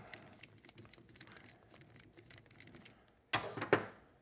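Faint light clicking of a screwdriver working the screws of an ATV carburetor, then two sharp clacks less than half a second apart near the end as the screwdriver is set down on the metal workbench.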